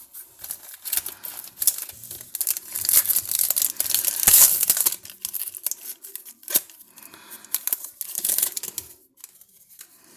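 Plastic wrapper of a baseball trading-card pack crinkling and tearing as it is opened by hand, a dense crackle that is loudest midway.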